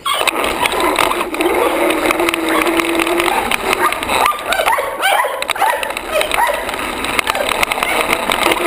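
The 22.2 V brushless electric motor of a 1/5-scale RC buggy whines, rising and falling in pitch as the buggy speeds up and slows, heard from a camera mounted on the car. Under the whine, the chassis and tyres rattle and knock over brick paving.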